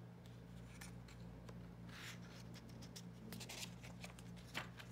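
Faint rustling and rubbing of a paper picture-book page being handled and turned, with a short crisp paper sound near the end, over a low steady hum.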